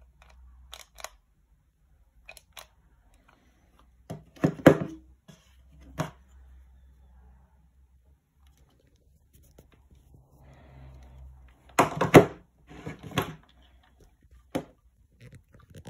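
Irregular clicks and knocks of a hollow plastic Lego minifigure torch being handled and turned over in the hand, the loudest ones about four and a half and twelve seconds in.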